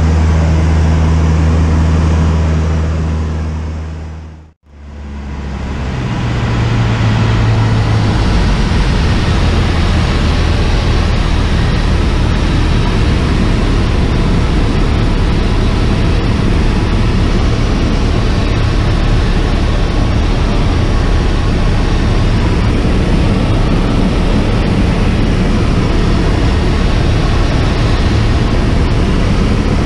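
Cessna A152 Aerobat's four-cylinder Lycoming engine and propeller droning steadily, heard inside the cabin. The sound fades out about four and a half seconds in and fades straight back up.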